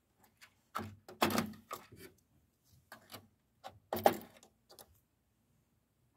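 Irregular clicks and knocks of computer parts being handled while a stubborn part is worked loose during a RAM swap, loudest about a second in and again about four seconds in.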